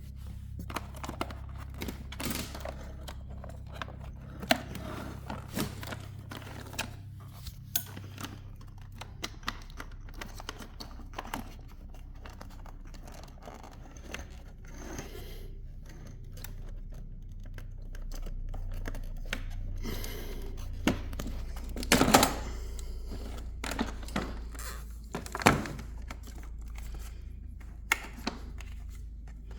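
Hands unplugging the battery connectors and working the batteries out of a plastic ride-on toy's battery compartment: scattered clicks, rattles and light plastic knocks, with two louder knocks in the last third, over a steady low hum.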